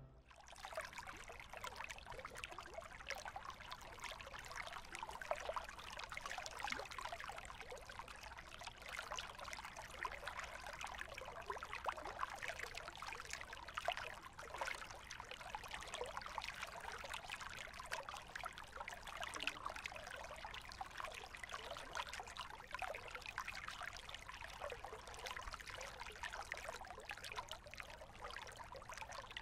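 Faint, continuous trickling and splashing of water, with small irregular drips and splashes, as kayak paddles dip into the still water of a flooded mine tunnel.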